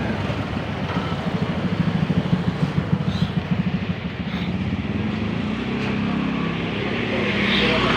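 A motor running with a steady low hum, pulsing fast for a couple of seconds about a second in.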